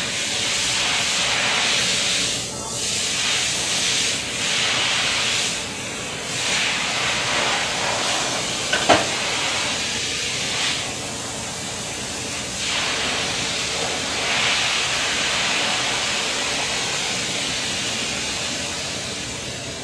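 Spray pump sending out a pressurised spray, a steady hiss that surges and dips every second or two, with one sharp click about nine seconds in.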